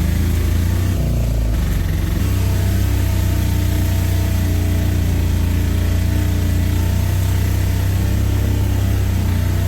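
A vehicle engine running steadily with a low drone. Its note changes about two seconds in and then holds even.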